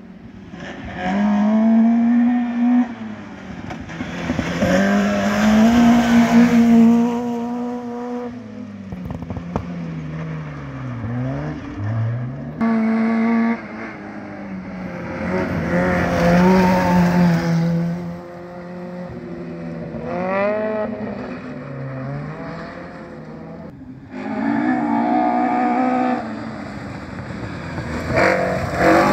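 Rally car from the up-to-1400cc class driven hard on a gravel forest stage, its engine revving up and falling away again and again through gear changes and lifts as it approaches.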